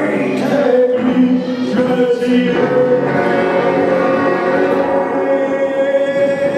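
A man singing into a handheld microphone. In the second half he holds one long, steady note.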